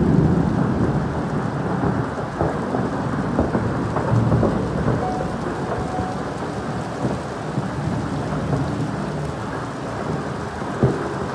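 Heavy rain mixed with small hailstones pouring down: a steady dense hiss with many scattered sharp ticks of pellets striking surfaces.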